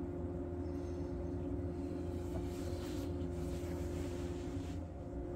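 Steady mechanical hum with a constant pitch and a low rumble under it.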